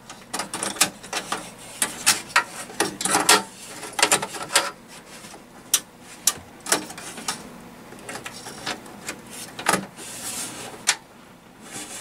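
Irregular clicks, taps and light scrapes as a WiFi card and its metal bracket are worked into a motherboard slot inside a metal desktop PC case.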